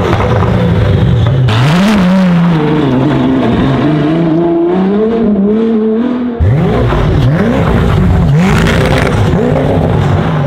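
High-performance supercar engines revving, in several clips cut together: first a steady run, then an engine climbing in pitch and wavering, then from about six seconds in a series of quick rev blips rising and falling.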